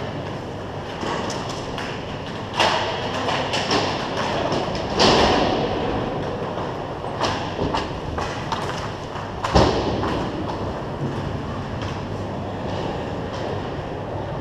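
Hockey play in front of the net: a steady scraping of skates and sticks on the rink surface, broken by several hard knocks and clacks of sticks, puck and bodies. The loudest, sharpest knock comes about two-thirds of the way through.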